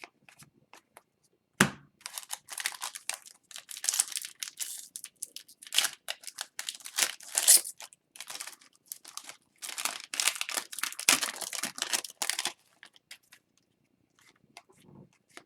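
A foil hockey card pack wrapper being torn open and crinkled, in dense, irregular crackling bursts for about ten seconds after a sharp click near the start.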